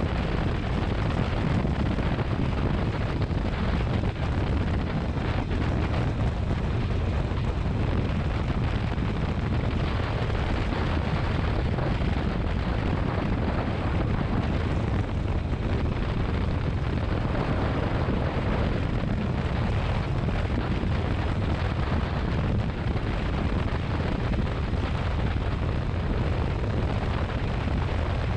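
Steady rumble of a motorcycle under way, the engine running at an even pace under wind buffeting on the microphone.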